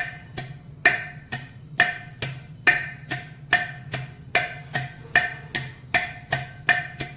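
Ghatam (South Indian clay pot) struck in an even chugging rhythm of about two ringing strokes a second, gradually speeding up: a percussion imitation of a train pulling away from a station.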